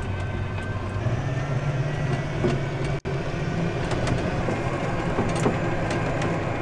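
Electric golf cart driving uphill on a paved road: a steady motor hum with tyre and road noise, stepping up a little in pitch about a second in. The sound cuts out for an instant about three seconds in.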